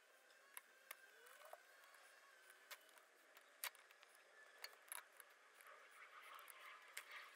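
Near silence broken by faint, sharp clicks and ticks of small metal picks against a brake caliper as its rubber piston boot is eased into place.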